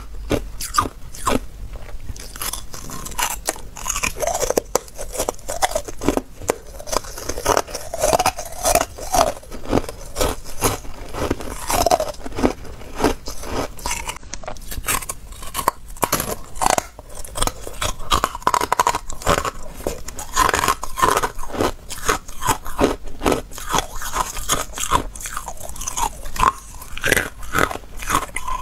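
Carbonated ice being bitten and chewed: dense, continuous crunching with many sharp cracks in quick succession.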